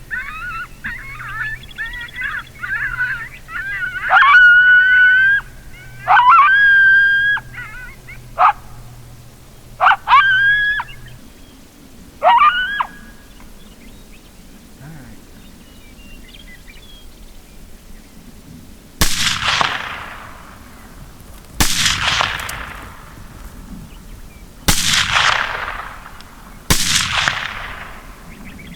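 Coyote howls and yips, long wavering howls mixed with short sharp yips, over a low steady hum that cuts off about eleven seconds in. Then four rifle shots come roughly two to three seconds apart in the last ten seconds, each trailing off in a long echo.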